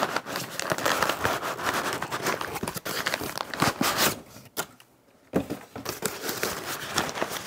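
Brown kraft paper packing wrap crinkling and rustling as it is pulled out of a cardboard box and handled, going quiet for about a second roughly two-thirds of the way through before the rustling resumes.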